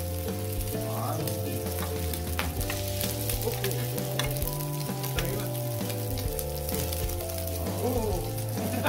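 Pork belly slices sizzling and crackling in a grill pan, with a few sharp clicks of metal tongs and kitchen scissors as the meat is cut and turned.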